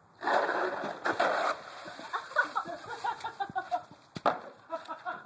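A sudden gush of water splashing, heaviest for about the first second and a half, from a water prank soaking a person.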